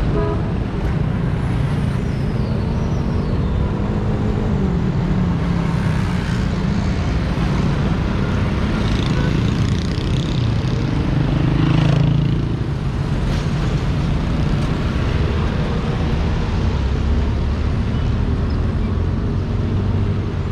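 Road traffic of trucks, cars and motorcycles passing, a steady mix of engine rumble and tyre noise. It swells about eleven to twelve seconds in as a vehicle passes close.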